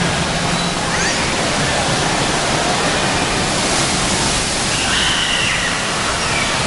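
Water pouring down and splashing into a shallow water-park splash pool: a steady, loud rush, with a child's high voice breaking through faintly about five seconds in.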